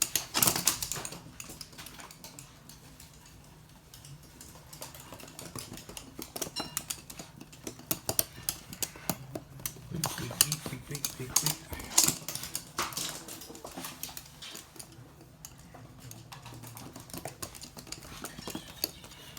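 Toy poodles' claws clicking and tapping on a hard floor as they scamper about, in irregular clusters of quick clicks.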